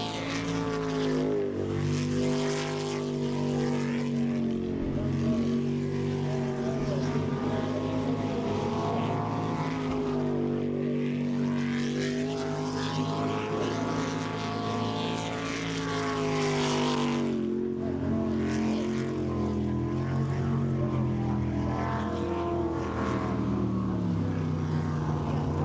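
V8 jet sprint boat engine running hard around the course, its revs rising and falling again and again as the boat accelerates and backs off through the turns.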